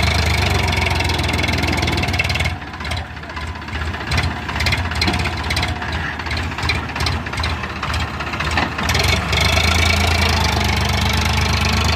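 Sonalika DI 750 tractor's diesel engine running under load as it pulls a trolley heaped with sand. It is heavier at the start, eases off from about two and a half seconds in, and works hard again from about eight and a half seconds.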